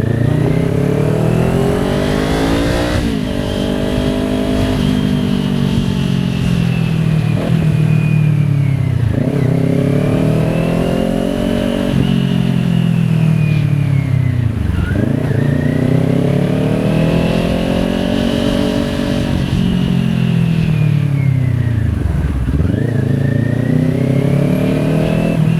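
Kawasaki Ninja 400's parallel-twin engine running, its pitch climbing and falling in long sweeps, with a sharp dip in revs about every six to seven seconds.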